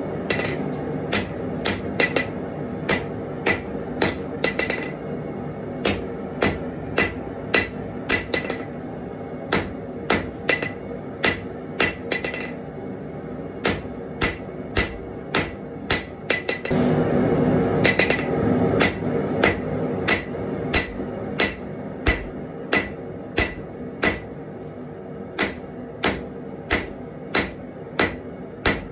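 Hand hammer striking a red-hot steel knife blade on an anvil in a steady rhythm, about one and a half blows a second, each blow with a short ring. A louder rushing noise swells for about two seconds midway.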